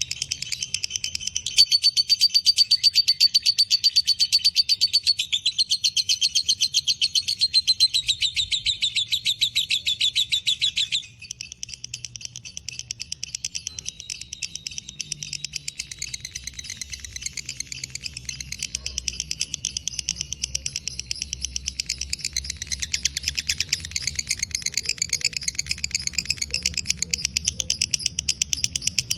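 Lovebird giving a long ngekek: a fast, unbroken, high-pitched chattering trill. It is loud for the first ten seconds or so, drops suddenly about eleven seconds in, and carries on more quietly.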